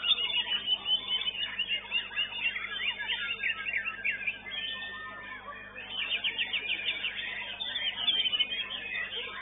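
White-rumped shamas (murai batu) singing at once in a dense stream of quick whistled and chattering phrases. There is a burst of rapid repeated notes about six seconds in.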